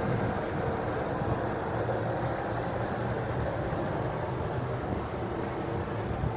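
Steady downtown street traffic: vehicles running past in a continuous mix, with a low engine hum.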